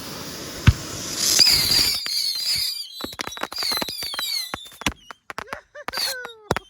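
A batch of bottle rockets going off together: many high whistles that drop in pitch as they fly, mixed with a rapid, irregular string of sharp cracks as they burst, thinning out near the end.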